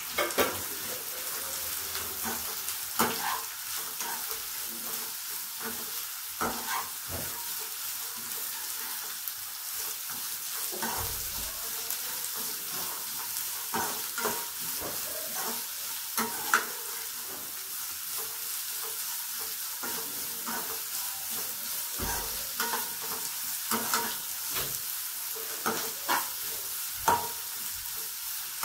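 Shredded cabbage, carrot and capsicum stir-frying in a non-stick wok with a steady sizzle, while a slotted steel spatula scrapes and knocks against the pan every second or two as the vegetables are tossed.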